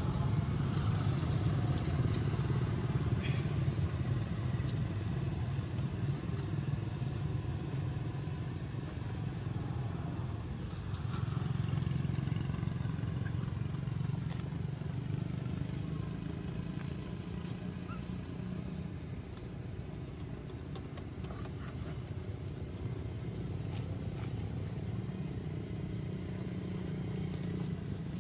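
A steady low outdoor rumble, even and without any pitched engine note, with a few faint short high chirps over it.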